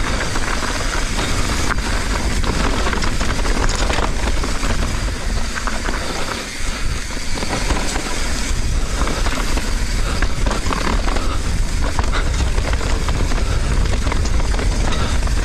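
Mountain bike being ridden fast down a dirt trail: wind rumbling on the microphone over tyre noise on dirt and rock, with scattered clicks and rattles from the bike.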